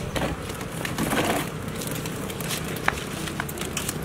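Clicks and knocks from a plastic ride-on toy excavator being handled and shifted on concrete, with a short rushing noise about a second in.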